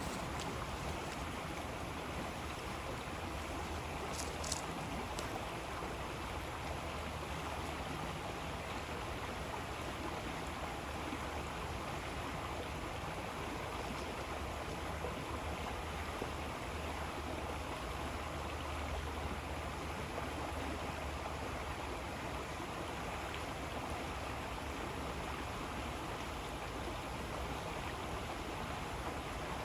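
River water flowing steadily, a continuous rushing with some gurgling, with two brief high ticks about four seconds in.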